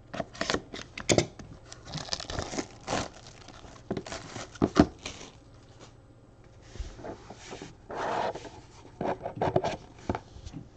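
Shrink wrap on a cardboard trading-card box being slit with a utility knife, then torn and crinkled off, in a run of irregular scrapes, clicks and crackling tears.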